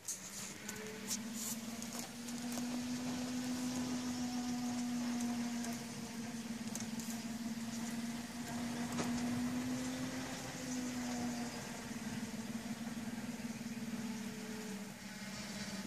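Steady electrical hum, with a few fainter overtones, from a Hummer wind-and-solar hybrid charge controller while its 24 V, 1000 W wind turbine charges at several hundred watts. The pitch wavers slightly and the hum weakens a little later on. A few light clicks come in the first couple of seconds.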